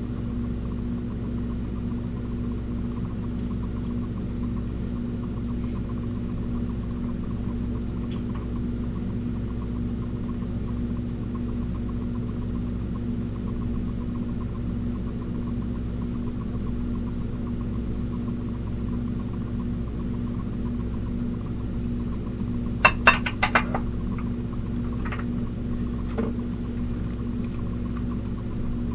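A steady low hum throughout. About three-quarters of the way in, dishes clink together sharply several times in quick succession, followed by a couple of lighter clinks.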